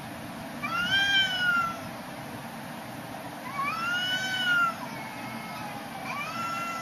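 A cat yowling three times, each long call rising and then falling in pitch, about two and a half seconds apart, over steady background noise.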